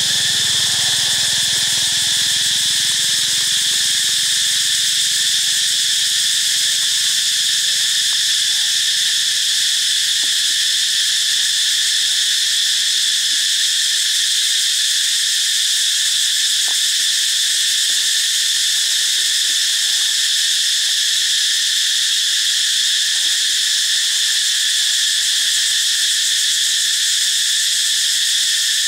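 Steady, loud drone of a tropical insect chorus, many insects calling together without a break.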